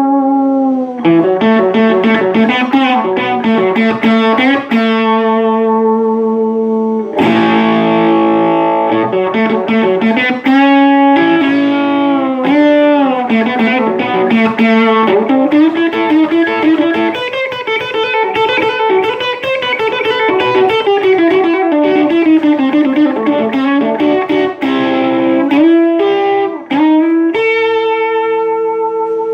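Distorted electric guitar played through an amp with a Boss DS-1 distortion pedal, in a classic rock tone. It plays lead lines with string bends, and long sustained notes with vibrato, including one held near the end.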